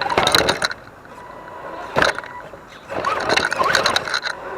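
Axial SCX10 DeadBolt RC truck crawling over rock: its 27-turn electric motor and drivetrain whining, with tyres and chassis scraping and knocking on the rock. There is a sharp knock about two seconds in and more clattering near the end.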